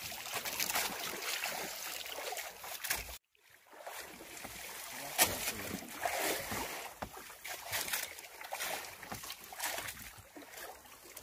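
Sea water slapping and splashing against the hull and bamboo outrigger of a small wooden outrigger boat, in an irregular run of small splashes over a steady wash. The sound cuts out completely for about half a second a little after three seconds in.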